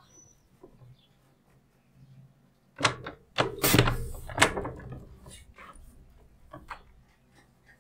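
Sliding-blade paper trimmer cutting card stock: the blade carriage is drawn along the cutting rail, giving a few loud scraping, clicking strokes about three seconds in, then lighter clicks as it settles.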